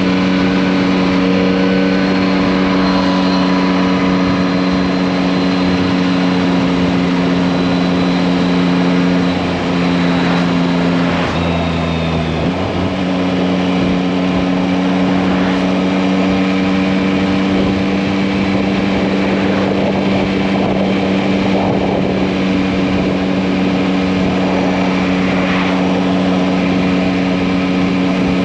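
Yamaha MT-09's 890 cc three-cylinder engine running at a steady speed on the move, over a constant rushing noise; about eleven seconds in the engine note dips briefly, then picks up again at the same steady pitch.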